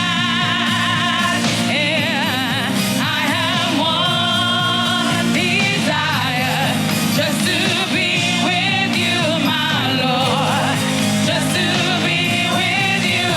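Live gospel praise-and-worship music: a lead vocalist singing with heavy vibrato over a band with sustained keyboard and bass chords.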